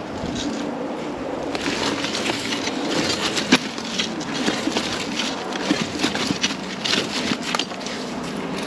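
Loose brick pillar being rocked by hand: bricks grind against each other and the old mortar crunches and crackles as the pillar shifts, with one sharp knock about three and a half seconds in. The pillar is loose, with hardly any wall ties holding it.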